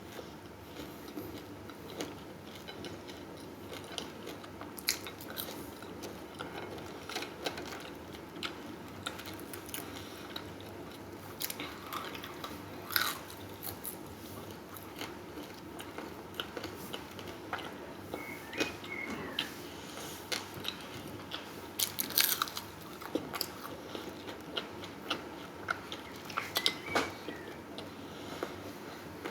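Close-up eating sounds: biting and chewing crunchy food, with many scattered small crunches and mouth clicks and a few louder snaps.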